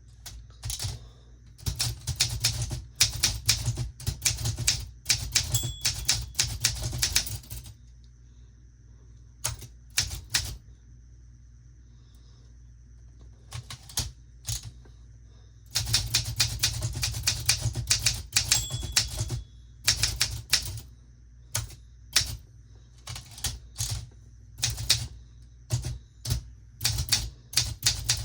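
Olympia SM9 manual typewriter being typed on: quick runs of sharp key strikes, broken by pauses and slower single keystrokes.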